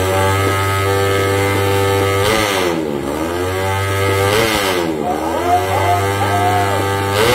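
Drag-racing motorcycle engine, a Honda Sonic drag bike, revving hard at the start line: held at high revs, with the revs dropping and climbing back up twice.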